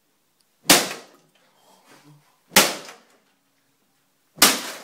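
A cane striking the plastic casing of an inkjet printer: three sharp cracks about two seconds apart, the last near the end.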